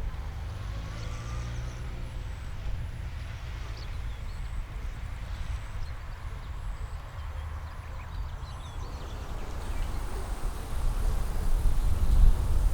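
Outdoor ambience: a steady low rumble that grows louder near the end, with a few faint, short bird chirps above it.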